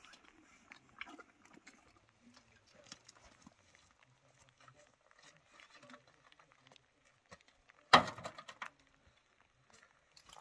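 Faint crunching and small clicks of a horse chewing, then about eight seconds in a single loud clank with a short rattle, as a metal milk can is set down by the cart.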